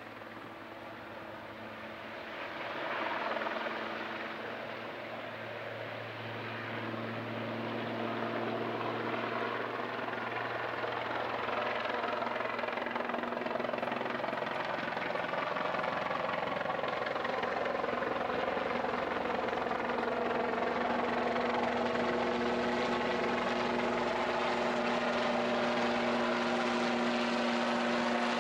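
Helicopter flying overhead, its rotor and engine sound growing steadily louder as it approaches.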